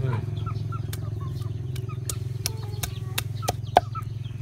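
Knife scraping and tapping on a wooden chopping board as small fish are scaled: a string of sharp clicks, the loudest near the end, over a steady low hum.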